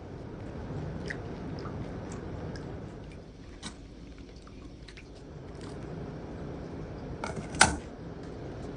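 Scattered small clicks and knocks of objects being handled, with one sharp, loud clack near the end, over a steady low background hum.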